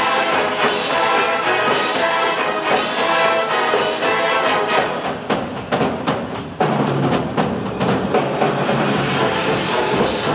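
High-school wind band and marching percussion playing: sustained brass chords, then, about five seconds in, a run of sharp drum hits under lower held brass notes.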